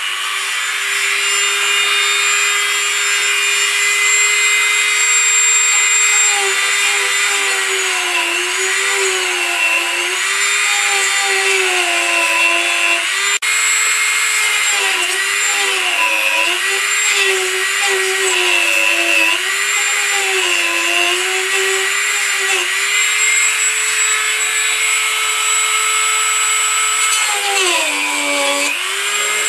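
Dremel rotary tool with a small cut-off disc running at high speed: a loud, steady whine. From about six seconds in its pitch dips and recovers again and again as the disc bites into a relay's case, then it runs steady again. Near the end the pitch drops sharply and climbs back.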